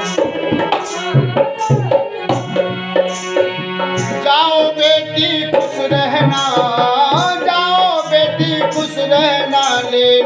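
Devotional folk song music: tabla playing a steady rhythm under sustained chords. A wavering, ornamented melody line enters about four seconds in.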